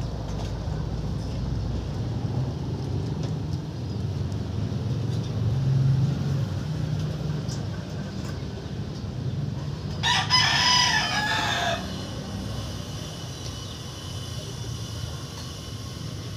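A rooster crows once, about ten seconds in, the call lasting under two seconds, over a steady low rumble.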